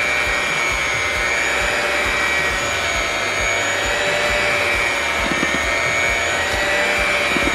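Electric hand mixer running steadily with its beaters in a bowl of cake batter: a continuous motor whine with a slightly wavering pitch.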